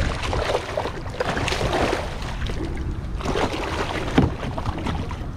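A hooked striped bass splashing and thrashing in the water at the side of a kayak as it is grabbed by hand, in several surges, with a sharp knock about four seconds in. Wind rumbles on the microphone underneath.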